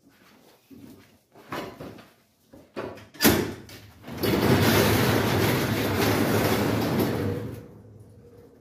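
Overhead sectional garage door being raised, its panels rattling and rolling up the tracks for about three seconds before fading off. Before that, a few knocks and a sharp clunk about three seconds in as the door is started.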